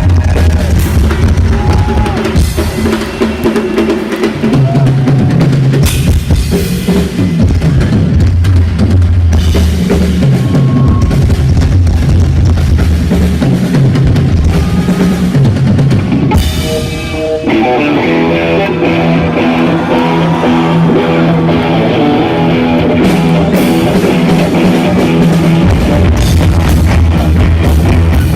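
Rock band music driven by a full drum kit with bass drum and snare, over bass guitar. About two-thirds of the way through the music dips briefly and moves into a section of held notes without the deep bass, which comes back near the end.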